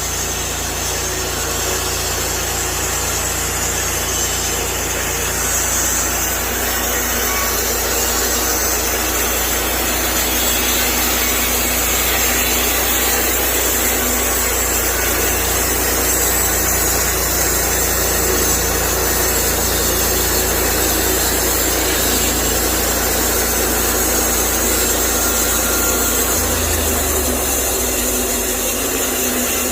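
Engine-driven sawmill running steadily with its blade cutting through a hemlock log, sawing lumber; the engine note shifts near the end.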